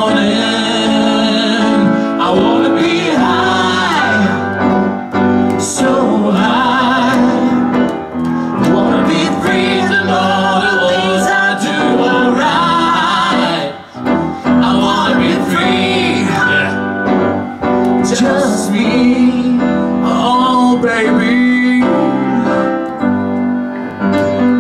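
Live acoustic band music: grand piano chords with male voices singing long, drawn-out vocal lines that bend up and down.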